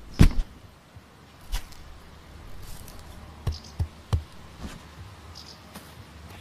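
A heavy double thud as a gardening tool caddy is set down on grass, followed by about five lighter knocks and thumps spread over the next few seconds.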